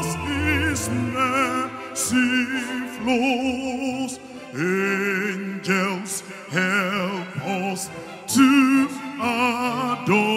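A man singing into a microphone through the hall's sound system, in an operatic style with heavy vibrato on long held notes and slides up into them, over instrumental backing.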